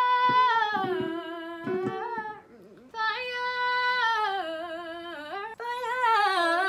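A girl singing a wordless vocal riff exercise, moving through a run of notes in two phrases with a short break between them. A woman's voice takes over near the end, singing the riff back.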